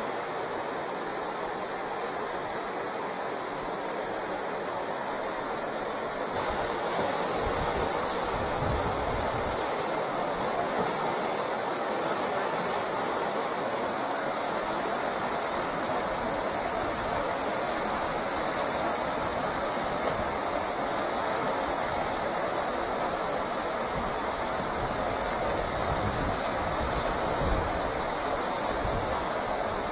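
Steady rushing of river rapids, white water running over rocks; it grows louder about six seconds in.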